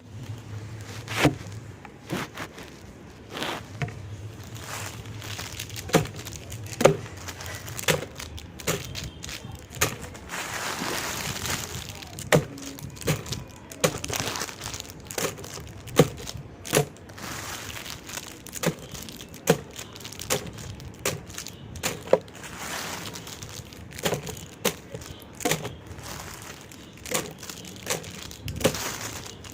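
Candy and its wrappers handled close to the microphone: crinkling with irregular sharp cracks and clicks, and a longer stretch of crinkling about ten seconds in.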